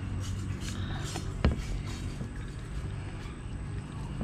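Barracuda steaks being handled and pressed with salt on a plastic cutting board. One sharp knock comes about a second and a half in, over a steady low rumble.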